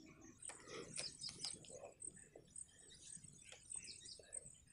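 Faint birds chirping in short, scattered calls, mostly in the first half.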